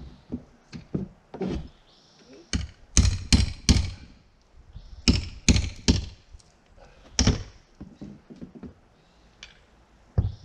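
Hammer blows on T1-11 plywood siding: about a dozen sharp wooden knocks. The loudest come in two quick runs of three, about three and five seconds in, with a single blow a little after seven seconds.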